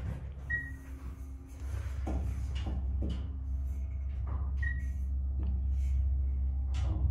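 Dover elevator car riding between floors: a steady low hum that grows louder about a second and a half in. A short high beep sounds about half a second in and again past four and a half seconds, with a few soft clicks between.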